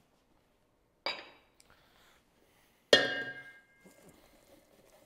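A short clink about a second in, then a louder knock on a stainless steel mixing bowl near three seconds in that leaves the bowl ringing for about a second, followed by faint scraping of a wooden spoon mixing potatoes in it.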